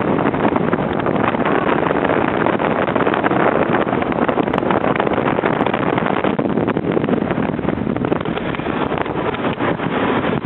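Motorboat running under way: a steady rush of engine and water noise, with wind buffeting the microphone.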